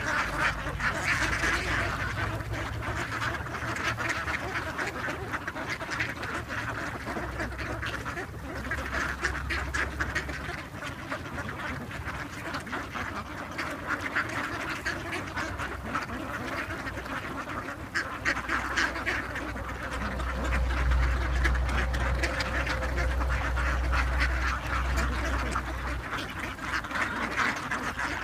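A large flock of mallards and white domestic ducks quacking over one another without a break as they crowd round to be fed, with a low rumble underneath that is loudest about twenty seconds in.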